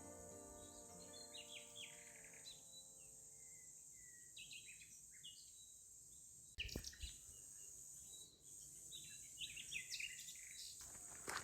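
Scattered short bird chirps over a steady high insect drone, faint overall, with a sharp knock about six and a half seconds in. Background music fades out at the start.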